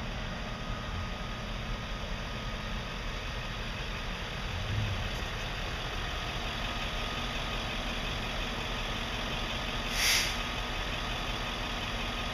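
Emergency vehicles' engines idling steadily, a constant low hum. About ten seconds in comes one short hiss of air.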